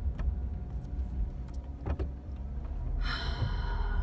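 Low, steady road and engine rumble inside a moving car's cabin, with a few faint clicks. About three seconds in, a sudden bright sound with many evenly spaced tones cuts in and then fades.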